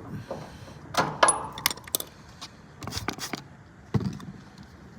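Metal tools and fittings clinking and knocking as they are handled: a run of sharp clicks, the loudest about a second in with a short metallic ring.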